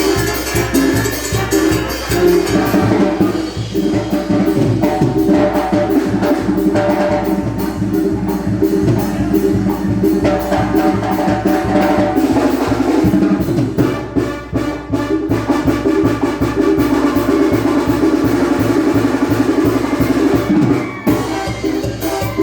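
Banda music played live by a Mexican brass band, with strong low bass notes under a steady, even percussion beat. The music drops out briefly about a second before the end, then comes back in.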